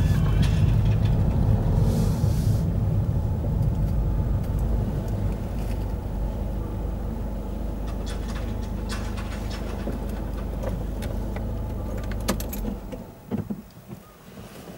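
Car engine and road rumble heard from inside the car as it slows and comes to a stop, settling to a steady idle. A few sharp clicks come near the end, and then the rumble drops away suddenly.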